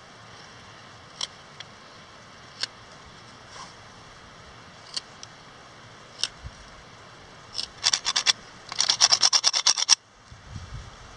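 Mora knife carving a cedar spatula, rounding its bottom. Single slicing cuts come a second or more apart, then near the end a quick run of short scraping strokes, about six a second and louder.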